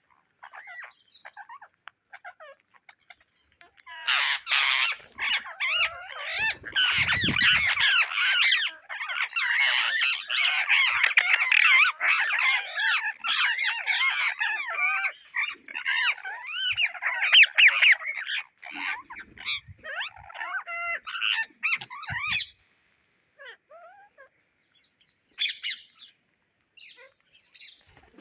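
Indian ringneck parrots squawking and chattering: scattered calls, then a dense run of overlapping loud calls from about four seconds in that breaks off near the twenty-two-second mark, after which only a few calls remain.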